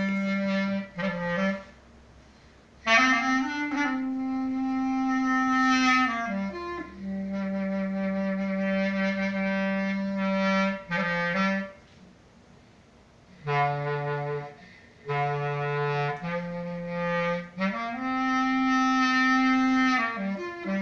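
Solo clarinet playing a kaba, the slow, improvised Albanian lament. Long held notes are joined by sliding, ornamented turns, with two brief pauses between phrases.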